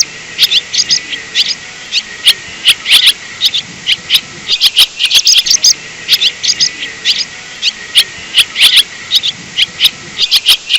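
Swallow twittering: quick runs of short, high chirps with brief pauses between them, over a steady hiss.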